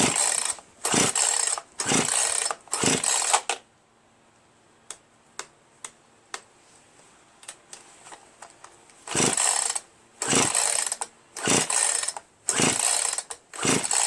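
Poulan Pro PR4218 42cc two-stroke chainsaw being pull-started: the recoil starter cord is yanked four times in quick succession, then, after a pause with a few faint clicks, about five times more. The engine never catches; the saw has no compression because its piston, rings and cylinder wall are badly scored.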